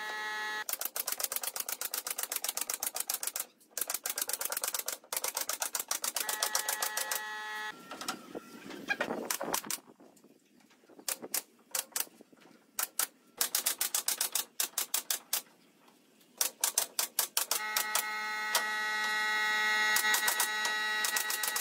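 Pneumatic nail gun firing in fast runs of sharp clacks, several a second, driving nails into pine slats, with a sparser, quieter stretch about halfway through. A steady humming tone comes in near the end.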